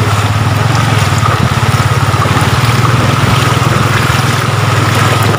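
Motorcycle engine running steadily through floodwater, with rushing, splashing water over it.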